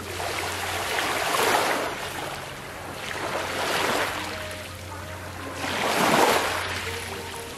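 Small sea waves breaking and washing up over a coral-gravel beach, in three surges a couple of seconds apart.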